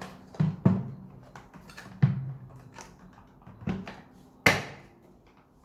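Hard plastic knocks and clicks as parts of a Karcher WD 3 wet and dry vacuum are handled and fitted back together. There are several separate knocks, the loudest about four and a half seconds in.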